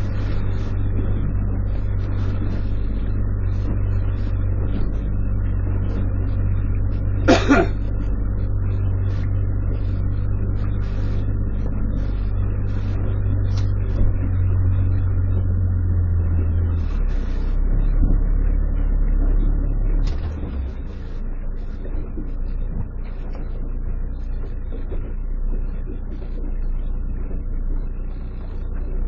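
Small fishing boat's engine running with a steady low drone, shifting to a lower, quieter note about twenty seconds in. A short sharp sound cuts through about seven seconds in.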